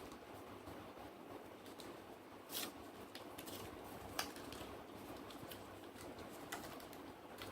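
Faint handling noise of phone-box packaging: a soft rustle and a few light clicks and ticks, the sharpest about four seconds in and again about six and a half seconds in.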